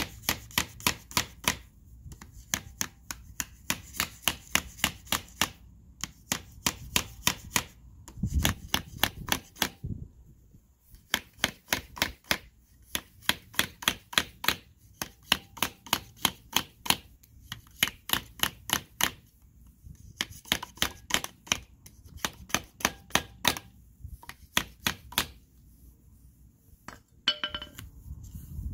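Claw hammer tapping lightly on a plastic tube connector used as a seal driver, driving a new oil seal down into a motorcycle front fork slider. Runs of quick taps, about five a second, broken by short pauses.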